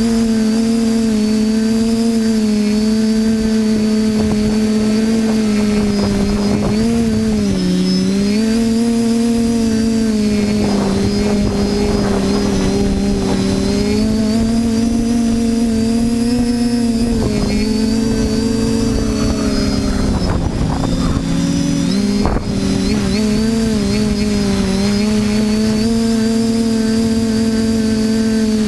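TBS Discovery quadcopter's electric motors and propellers buzzing steadily in flight, the pitch dipping briefly twice as the throttle eases off, with rougher buffeting noise in the middle stretch.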